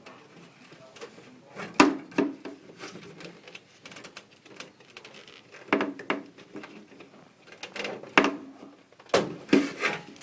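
Hands handling a range-hood LED bulb's wire and plug connector: rubbing and scraping broken by several sharp clicks and knocks, most of them in pairs, as the bulb's wire is pulled out and its socket handled.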